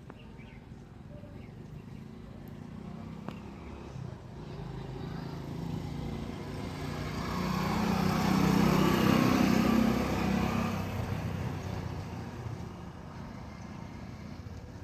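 A motor vehicle passing by: a low engine hum that grows louder, peaks about nine seconds in, then fades away.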